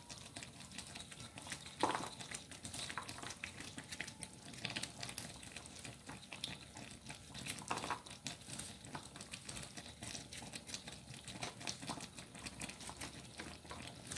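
Fish-head curry simmering in a frying pan, the thick gravy bubbling with a steady fine crackle and pop as the oil rises to the surface, with a sharper click about two seconds in and again near eight seconds.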